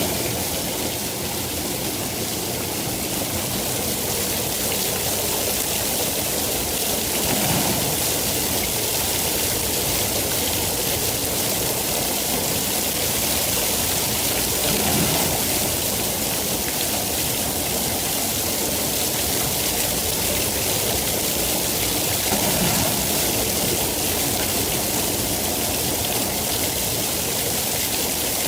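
Steady rain falling, a dense even hiss that swells softly a few times.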